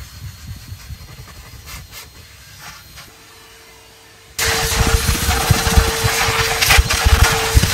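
A vacuum cleaner running, coming in abruptly about four and a half seconds in with a loud rush of air and a steady whine, as its nozzle works over car carpet. Before it there are only faint low rumbles and light ticks.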